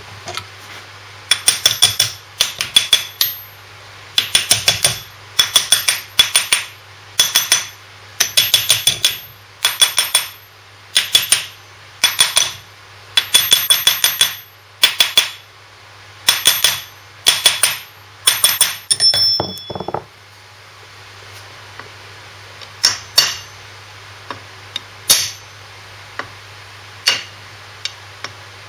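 Hammer and drift tapping the front output bearing's outer race home into a Land Rover LT76 transfer box casing. Quick bursts of several hard metallic taps with a high ringing note repeat for about twenty seconds, then a few lighter single taps follow near the end.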